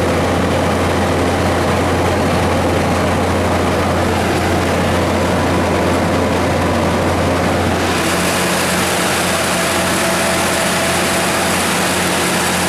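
Detroit Series 60 inline-six natural gas engine of a Katolight 200 kW generator set running steadily with a low hum. About eight seconds in the sound turns brighter and hissier and a faint steady tone comes in.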